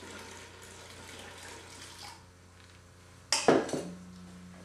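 Water being poured from a stainless steel bowl into a stainless stockpot, running for about two seconds and then stopping. About three seconds in there is a sharp metallic clank as the bowl is set down.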